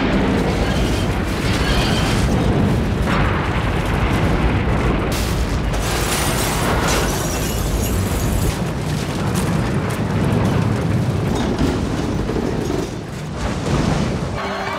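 Film sound effects of large-scale destruction: a heavy, continuous rumble with crashing and grinding of wrecked boats and debris being shoved along, loud throughout and easing slightly near the end.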